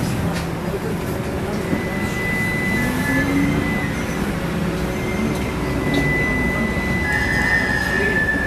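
Cabin noise of a Trolza-5265.00 Megapolis trolleybus riding: a steady rumble with the electric traction drive's whine gliding up and down, and a thin high steady whistle over it.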